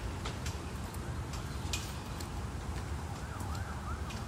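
A steady low outdoor rumble, with footsteps crackling on wood-chip mulch and a faint siren wailing up and down in the distance, clearest near the end.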